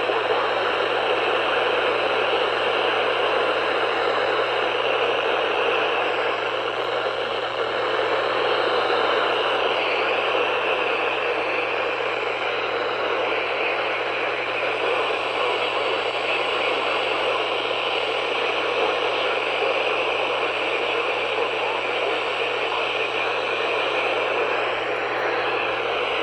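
Steady radio static: an even hiss confined to a narrow voice-band range, with a low hum beneath it and no voice on the channel.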